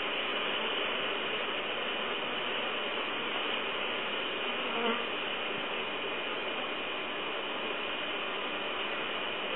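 Steady, dense buzzing of many honeybees flying in and out at the hive entrance during their toki-sawagi, the midday orientation flights of young workers.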